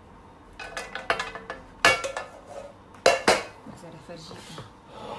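A kitchen utensil clattering and knocking against a pizza pan: a run of clinks and scrapes, with the loudest clanks about two and three seconds in.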